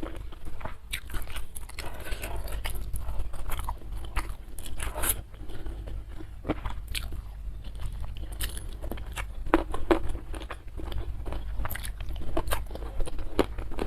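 Close-miked biting and chewing of crunchy food: many sharp, irregular crunches and crackles in quick succession.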